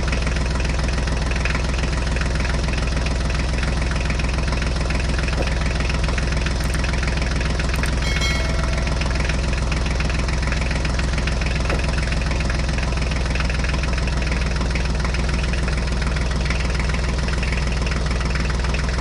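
Tractor engine sound running steadily at an even, idle-like pace.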